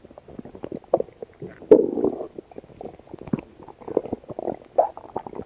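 A stomach growling and gurgling: a run of short bubbling pops and squelches, with a longer, louder gurgle about two seconds in.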